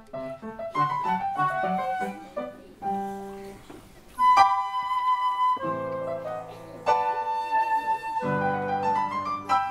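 Transverse flute playing a melody with piano accompaniment: quicker notes at first, then a long held flute note about halfway through over sustained piano chords.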